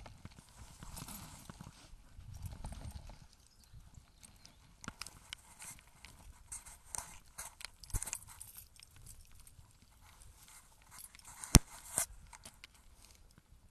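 Footsteps and light clicks while walking a lane, irregular rather than a steady beat, with a low rumble in the first few seconds and one sharp knock about eleven and a half seconds in, followed by a softer one.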